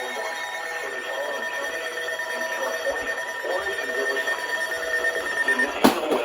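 Steady electronic alert tone from an emergency alert broadcast. A sharp click sounds near the end.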